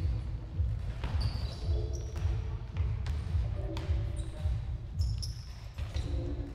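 A football being played in a teqball rally: a series of sharp ball impacts off players' feet and the curved table, about one a second, echoing in a large sports hall.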